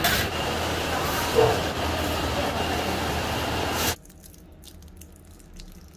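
Steady machine noise from the baking workshop, with a faint high tone, cutting off abruptly about four seconds in. After that it is quiet, with a few faint crackles as a baked ox tongue pastry is pulled apart by hand.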